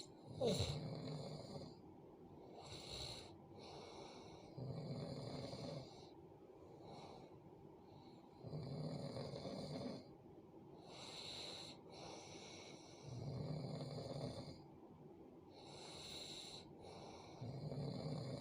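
A sleeping person snoring, a snore about every four seconds with quieter breaths between. The loudest moment is a sudden sound with a falling pitch just after the start.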